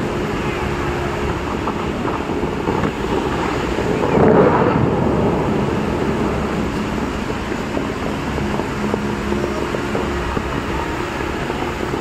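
Rushing, splashing water from the tall jets of a large fountain show. It is a steady noise of falling spray that swells briefly about four seconds in.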